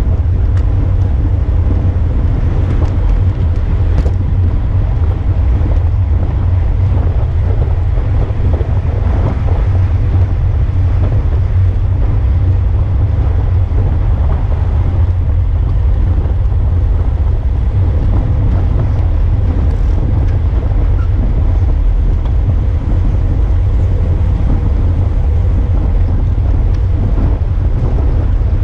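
Wind buffeting the microphone of a bicycle-mounted camera riding at race speed in a pack of road cyclists: a steady, loud low rumble with no breaks.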